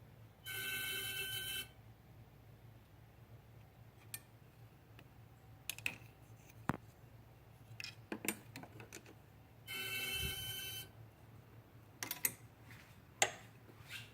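A/C compressor of a 2013 BMW 535i whistling with the engine off, in two short bursts of about a second each, some nine seconds apart. The whistle is the sign of a failing A/C compressor and stopped once the compressor was replaced. Light clicks fall in between.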